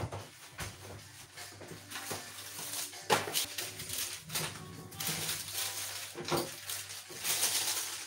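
Kitchen handling clatter: dishes and utensils knocking, with sharp clacks about three and six seconds in and a rustling near the end, over background music.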